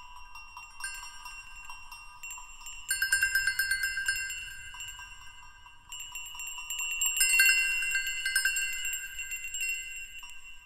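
Chimes tinkling: many quick light strikes ringing over a few held tones, thickening into a dense flurry about three seconds in and again from about six seconds, loudest near the middle of the second flurry.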